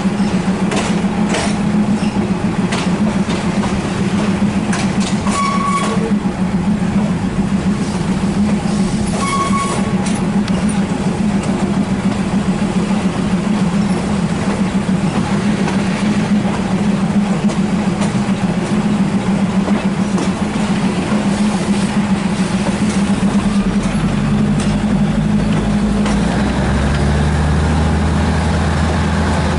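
Hitachi diesel multiple unit running, heard from an open window: a steady diesel drone with wheels clicking over rail joints and points, and two brief high tones about five and nine seconds in. Late on the engine note changes and drops lower.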